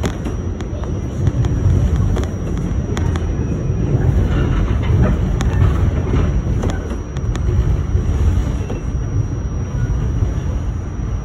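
New York City subway train running along the track, heard from inside the front car: a steady, loud low rumble with irregular sharp clicks of the wheels over the rails.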